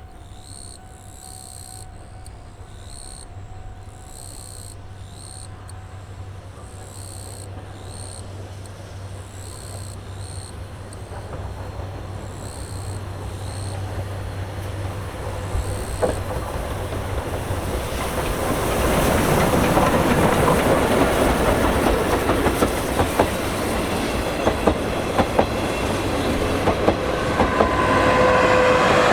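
Steam-hauled SL Paleo Express train approaching and passing: the rumble of wheels on rail grows until it is loud about two-thirds of the way in, with a run of sharp clacks over rail joints near the end.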